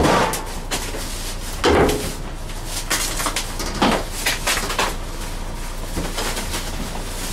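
Meat cleaver chopping cooked barbecue meat on a cutting board: several sharp, irregular chops, roughly one a second.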